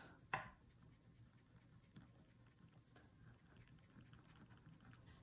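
Faint rubbing and light scratching of a pencil's eraser on paper as lines in a drawing are erased, with one sharp click just after the start.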